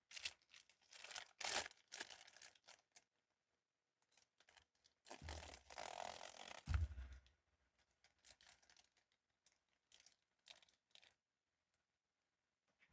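Blind-box toy packaging being torn open and crinkled by hand. Quick crinkles come first, then a longer tear about five seconds in ending in a soft knock, then a few scattered crinkles.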